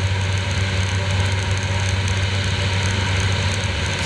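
Kitfox 4 light aircraft's engine and propeller running steadily at a constant throttle setting in flight, heard from inside the cockpit as an even, unchanging drone with a strong low hum.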